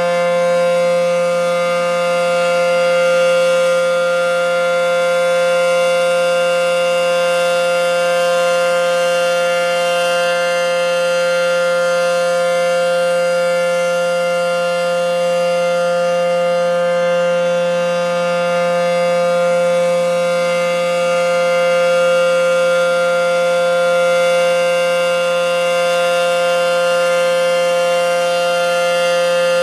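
ACA P-10 electronic outdoor warning siren sounding its steady alert tone, loud and unwavering in pitch, with only slight slow swells in loudness.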